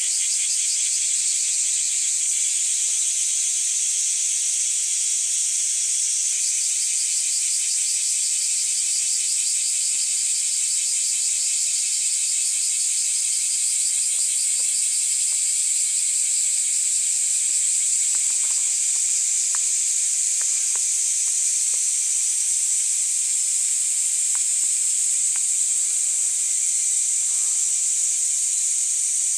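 Dense chorus of singing insects: a steady high-pitched hiss with a fast pulsing trill beneath it. A few faint clicks come in the second half.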